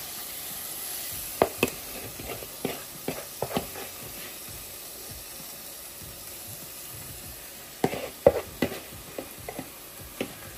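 Marinated chicken pieces spooned into a hot pan of frying onions and spices, sizzling steadily. A cooking spoon knocks against the bowl and pan in two bunches of sharp clacks, early and again near the end.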